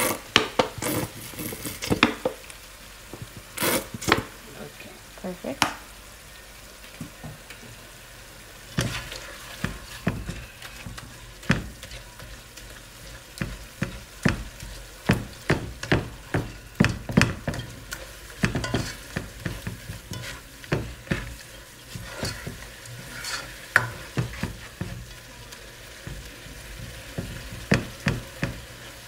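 A spoon stirring flaked salted codfish in a hot metal pot, knocking and scraping against the pan many times over a steady sizzle.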